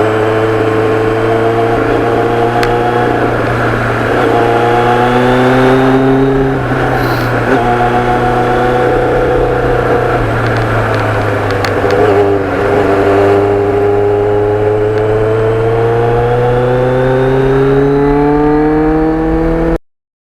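Motorcycle engine under way, its note climbing in pitch in several stretches with brief dips between, like accelerating up through the gears, with wind rush. It cuts off suddenly near the end.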